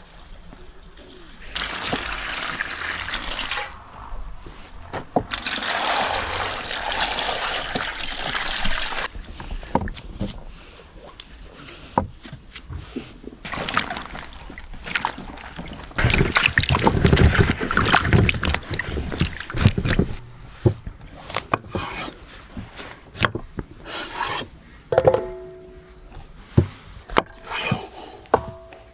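Liquid poured or running in several stretches of a few seconds each, followed by a run of light knocks and clicks.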